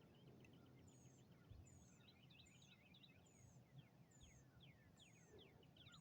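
Near silence with faint distant bird calls: a thin high note repeated seven times, about every 0.8 seconds, over faint short downward-slurred whistles.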